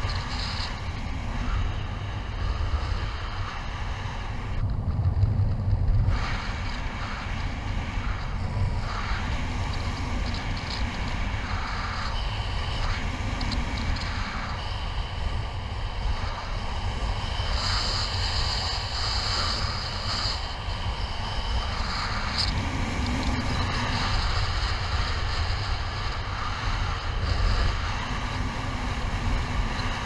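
Wind rushing over the camera microphone during a paraglider flight in strong wind: a continuous low rumbling buffet that swells and eases, with faint higher tones coming and going.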